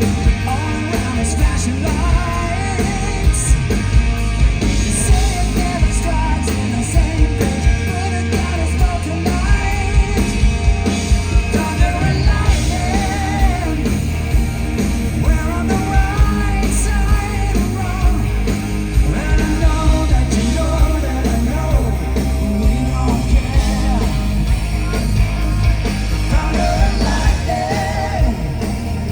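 Hard rock band playing live: electric guitars, bass and drums under a male lead singer's voice, loud and unbroken.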